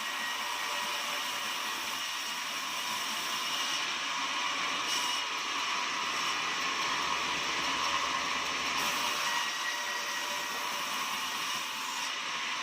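Horizontal sawmill running steadily, a held high-pitched whine over a constant hiss.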